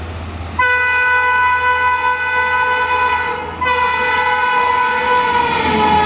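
WAP-5 electric locomotive's horn sounding two long blasts as it approaches at speed; the second blast drops in pitch as the locomotive passes, with the rush of the train rising underneath.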